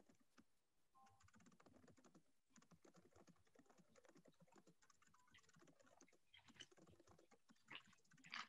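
Near silence, with faint rapid clicking throughout.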